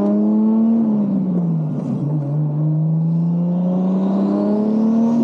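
Toyota Mk4 Supra's 2JZ-GTE turbocharged inline-six accelerating hard through the gears on freshly gapped spark plugs. The engine note rises, drops at a gear change about a second in, climbs again with a faint high whine rising alongside, and drops at another shift near the end.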